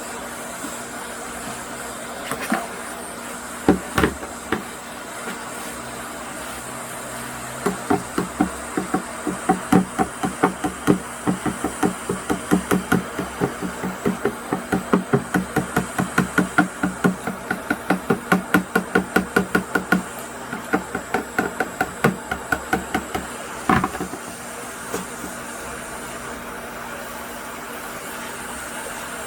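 Hot air rework station blowing steadily, with a run of quick, evenly spaced knocks or taps, about three a second, starting about eight seconds in and stopping near the end. A few single knocks come earlier.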